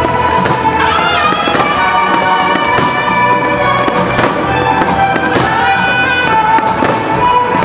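Fireworks going off in repeated sharp bangs over loud music from the fireworks show.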